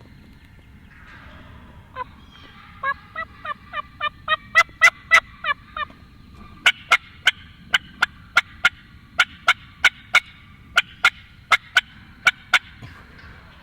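Turkey yelping: a run of about a dozen two-part yelps that grow louder, then a string of short, sharp cutts, about three a second, until near the end.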